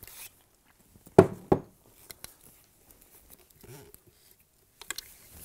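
Handling of an Eclair NPR 16mm film camera: two sharp clicks about a second in, then scattered lighter clicks and knocks as the camera is turned and its parts are worked.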